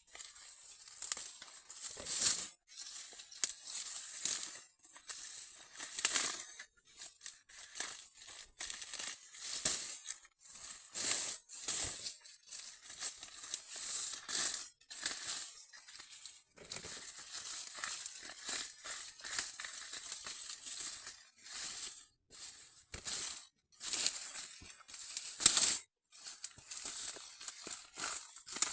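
Dry corn leaves and husks rustling and tearing in irregular bursts as corn is picked by hand, the loudest crackle about 25 seconds in.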